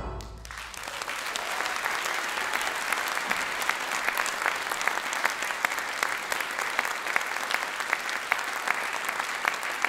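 The big band's final chord dies away in the first instant. Then a concert audience applauds steadily, with many single claps standing out.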